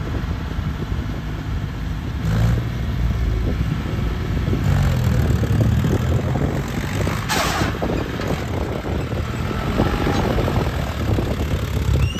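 John Deere 5050D tractor's three-cylinder diesel engine running under heavy load through a wheelie stunt, revving up about two seconds in and again near five seconds. A brief hiss about seven seconds in.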